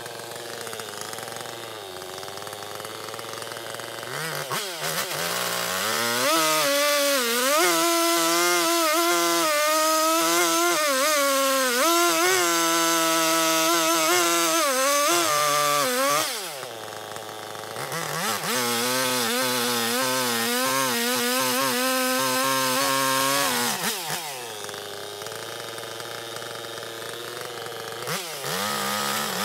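Two-stroke chainsaw bucking a shagbark hickory log. It idles, then revs up about four seconds in and cuts for about ten seconds, its engine pitch sagging and recovering under load. It drops back to idle, makes a second cut of about six seconds, idles again, and revs up once more at the end.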